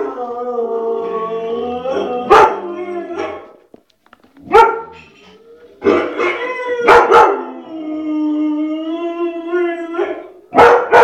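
White Shepherd dog barking and howling: two long, drawn-out howls, with single sharp barks and a quick run of barks between them.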